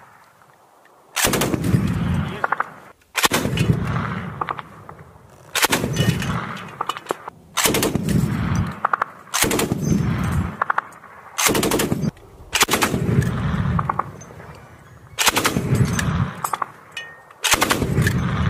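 NSV 12.7 mm heavy machine gun firing short bursts, each a rapid string of shots lasting about a second, repeated roughly every two seconds.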